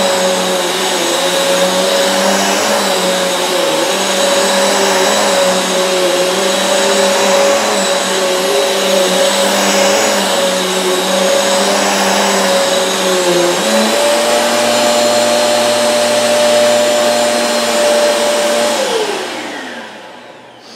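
Eureka AirSpeed One upright vacuum cleaner running on carpet, its motor tone dipping slightly as it is pushed back and forth. About 14 s in its pitch steps up and holds, then near the end the motor is switched off and winds down.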